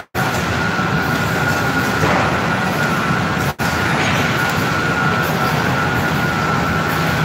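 Steady machine din of an industrial flatbread production line: conveyors, oven and press running together, with a constant high whine over it. The sound drops out for an instant at the start and again about three and a half seconds in.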